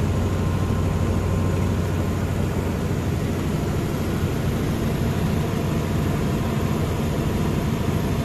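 Perkins diesel generator set running steadily in its enclosure, giving an even low hum with no change in speed.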